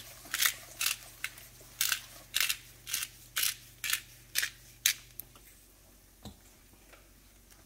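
Pepper grinder twisted over a skillet of gravy, about ten short grinding strokes roughly two a second, stopping about five seconds in.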